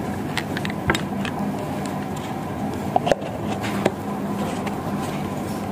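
Steady background hum with a few short clicks and knocks of handling close to the microphone, as a plastic water bottle and cup are handled: one about a second in, two in quick succession about three seconds in, and one shortly after.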